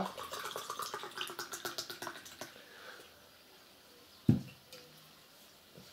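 A carbonated energy drink poured from an aluminium can into a glass, splashing and fizzing with a fine crackle of bubbles that tails off after about two and a half seconds. About four seconds in, a single thump as the can is set down on the table.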